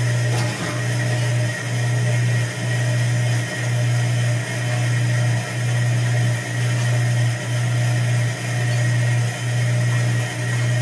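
A drum-type foundry sand muller running with a steady low electric hum that dips in level about once a second, in rhythm, while it mulls green sand. A single sharp click comes about half a second in.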